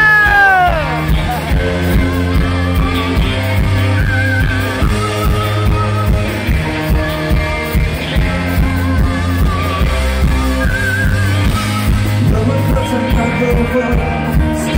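Live indie rock band playing amplified, with electric guitars, keyboards, drums and singing, heard loud from the crowd. A long held note falls away in the first second, then the song carries on over a steady drum beat.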